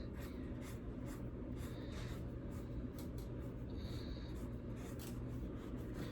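Soft, irregular scratchy strokes of a paintbrush dabbing and brushing paint onto a pumpkin.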